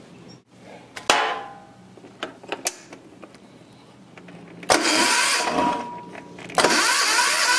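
Single-cylinder diesel generator engine turned over by its electric starter in two bursts, a short one about five seconds in and a longer one near the end, cranking with the high-pressure injector line loosened to bleed air out of the fuel system. A sharp click comes about a second in.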